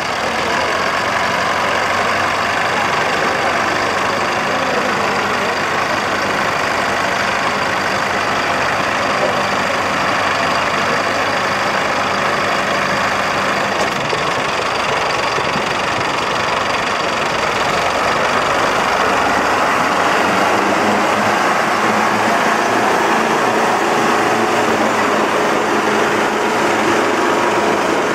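Two diesel tractors, a Mahindra Arjun 605 and a Sonalika, running hard under heavy load as they pull against each other in a tug-of-war. The engines labour steadily, growing a little louder about two-thirds of the way through.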